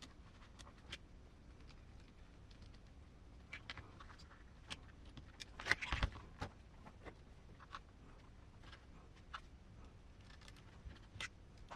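Small metal parts and hand tools handled on a workbench: scattered light clicks and taps, with a louder clatter about six seconds in, as grub screws are fitted into RC crawler wheel hexes.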